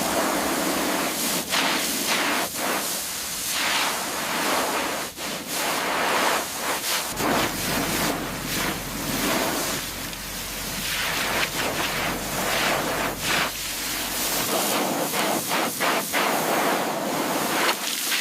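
Water spraying hard against a surface with a steady, uneven hiss, as in washing down a mud-caked vehicle. A low hum joins about seven seconds in and stops about halfway through the rest.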